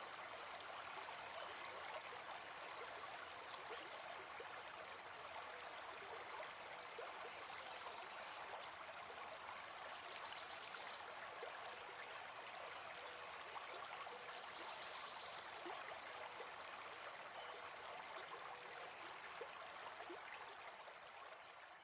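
Faint, steady rush of a running creek, fading out near the end.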